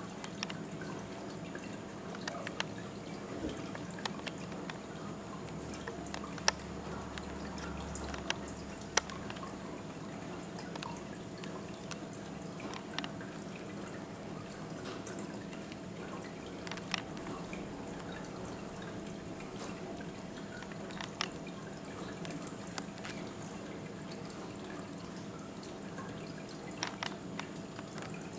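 Water trickling and dripping over a steady low hum, with scattered sharp clicks as two cats drink side by side from a water bowl.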